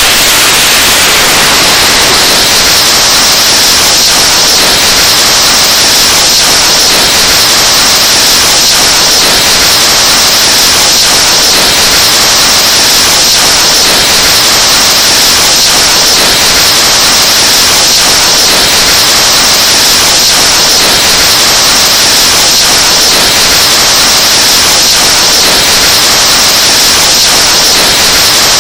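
Breath blown into a microphone, boosted until it distorts into a constant, extremely loud hiss of static-like noise. It is the overdriven 'earrape' meme sound effect.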